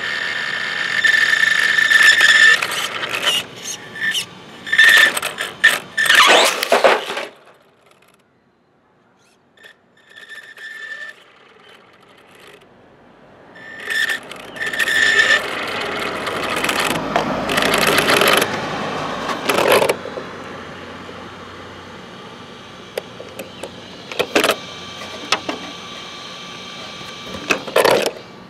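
Traxxas Slash 4x4 RC monster truck driven by a Castle 1415 brushless motor, its motor giving a high whine in bursts of throttle as it pulls away and fades into the distance. It comes back loud again and passes right over the microphone near the end.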